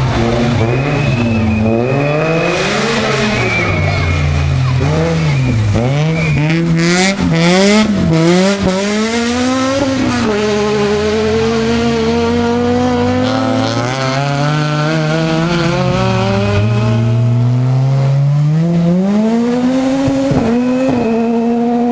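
Rally car engines at full throttle through a hairpin: a Ford Fiesta rally car accelerates out of the corner and away, its revs climbing and dropping with each gear change, with a short tyre squeal. A second rally car then approaches, its engine note falling as it brakes and changes down, and rising again as it powers out of the hairpin near the end.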